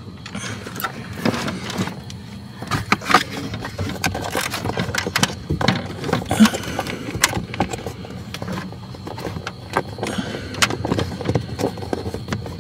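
Hands feeling around the plastic cabin-filter bracket under the dashboard for its push-release clips: irregular small knocks, clicks and scrapes against the plastic trim.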